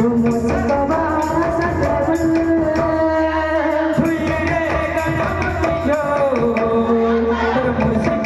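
Live Sambalpuri kirtan music: a loud, held vocal melody stepping from note to note over a quick, steady beat of barrel drums (dhol).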